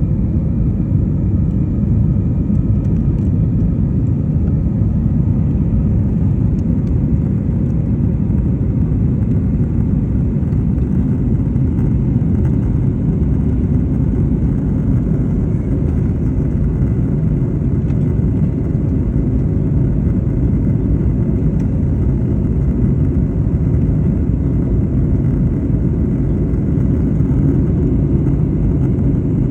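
Airliner engines and rushing air heard inside the cabin after takeoff: a loud, steady low rumble with a faint whine above it.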